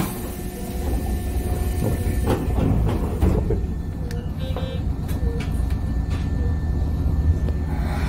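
Keisei Kanamachi Line train heard from inside its rear cab at a station: a steady low rumble of the train's running equipment, with a few sharp clunks and knocks about two to three seconds in and a short high beep near the middle.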